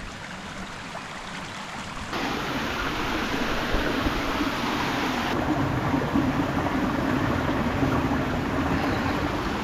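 Creek water rushing over rocks, a steady wash that becomes louder and fuller about two seconds in.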